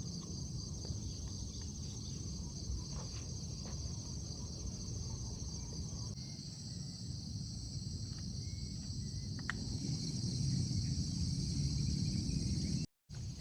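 A chorus of insects, crickets among them, trilling steadily in a high, even band over a low rumbling background noise. The sound cuts out for a moment near the end.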